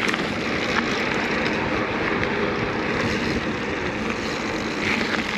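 Steady rushing noise of a mountain bike being ridden over rough ground: wind over the microphone and the tyres rolling on the track.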